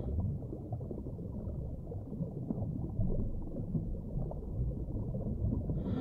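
Muffled rush of water: a dull, low wash with no high end, which starts and stops abruptly.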